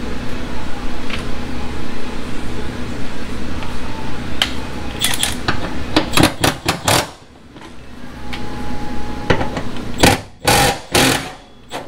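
A cordless power tool runs in a few short, loud bursts about ten seconds in, loosening a bolt on the car's exhaust hanger bracket. Before that there is a steady mechanical hum with scattered clicks and knocks of tools on the exhaust.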